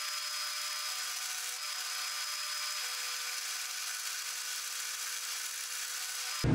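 Drill press spinning an end mill through aluminium square stock: a steady high-pitched whine over a hiss.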